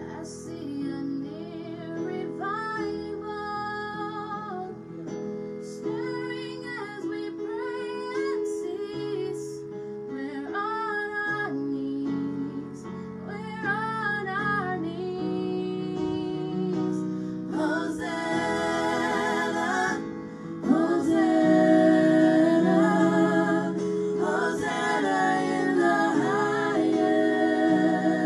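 Gospel worship song: a woman sings long phrases with vibrato over held instrumental chords. The music grows fuller and louder about two-thirds of the way in.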